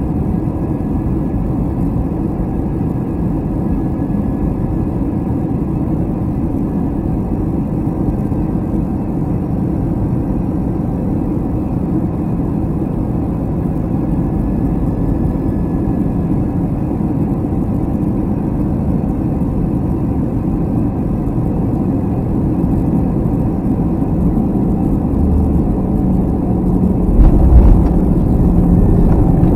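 Airbus A321 cabin noise on final approach at a window over the wing: a steady roar of engine and airflow that slowly grows louder. About 27 seconds in, a low thump as the main wheels touch down, then a louder rumble of the landing gear rolling on the runway.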